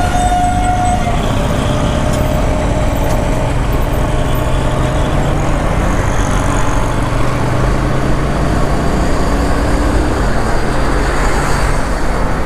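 Riding a TVS Apache RTR 160 motorcycle: a steady rush of wind and road noise over the hum of its single-cylinder engine, whose pitch drifts slowly with speed. A brief steady tone sounds in about the first second.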